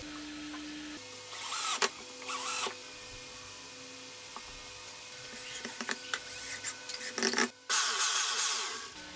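Two short whirs of a power tool in the first few seconds, a run of light clicks and rattles, then an electric jigsaw running for about a second and a half near the end, its blade moving up and down between a pair of ball-bearing roller guides.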